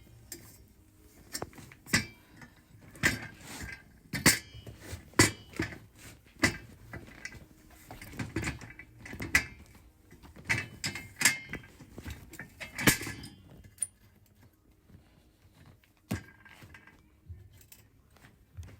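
Irregular clanks, knocks and rattles of metal parts being handled and fitted together by hand, some hits ringing briefly; they thin out near the end.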